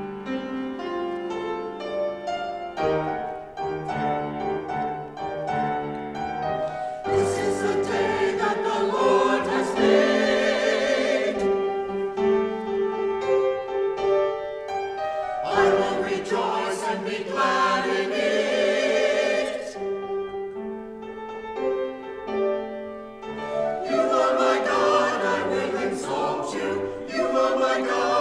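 Mixed adult church choir singing an anthem with piano accompaniment; the singing grows louder and fuller about seven seconds in.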